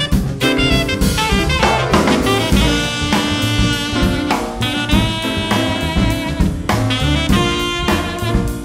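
Jazz played by a quartet of alto saxophone, piano, bass and drums, with the saxophone and a busy drum kit to the fore.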